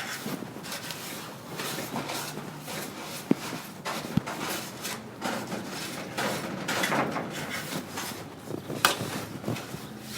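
Irregular light knocks and scraping of wood and debris being handled, with a few sharper knocks about three, four and nine seconds in.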